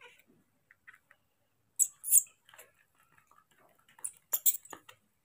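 Metal spoon clicking and scraping against a small plastic bowl while mashed food is scooped up, with two sharp clicks about two seconds in and a cluster of clicks near the end.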